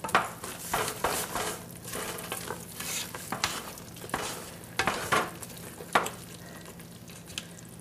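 Wooden spoon stirring thick, bubbling peanut brittle syrup full of peanuts in a metal stockpot, scraping the bottom in irregular strokes over a steady sizzle. The sugar syrup is at about 280–290 °F, being cooked up toward the hard-crack stage and kept stirred so the nuts don't burn on the bottom.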